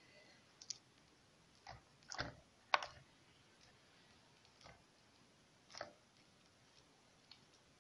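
A metal spoon pressing thick quince paste with walnuts into a silicone mold cavity, giving a handful of faint clicks and soft knocks spaced irregularly, the sharpest about three seconds in.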